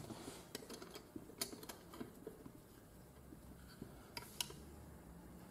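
Faint scattered clicks and light knocks from a bench leather splitter as a leather strap is drawn through it to thin it, with the sharpest clicks near the start and about four seconds in.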